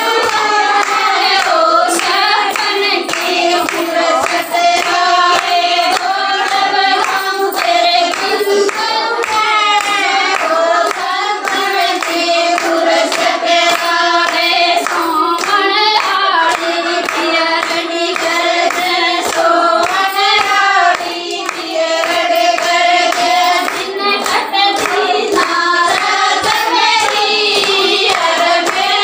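Haryanvi jakri folk song sung without pause, with hand-clapping keeping a steady beat.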